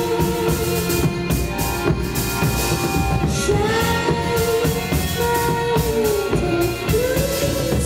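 Live rock band playing, with drums and guitar, while a woman sings long held notes that swell and fall in pitch, one stretching over about three seconds from a little past the middle.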